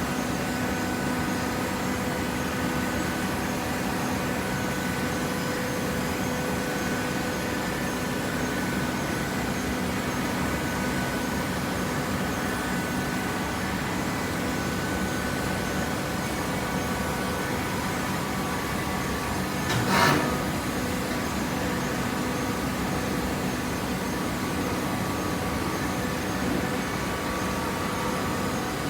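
Hydraulic waste-paper baler running with a steady machine hum, its pump motor holding a constant pitch. One short knock about two-thirds of the way through.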